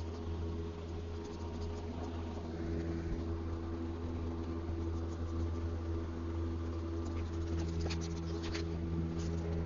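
A steady low machine hum with a few steady tones over a light hiss, and a few light clicks near the end.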